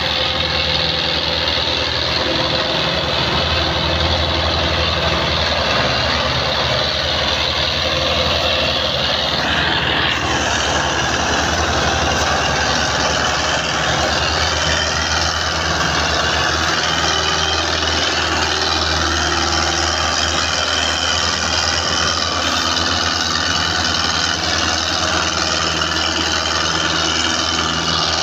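Belarus 510 tractor's diesel engine running steadily while it pulls a heavily loaded sugarcane trolley.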